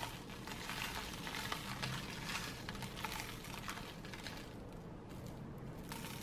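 Seasoning shaken from a spice bottle, fine grains pattering lightly onto parchment paper over vegetables in an air fryer basket; the pattering thins out after about four seconds.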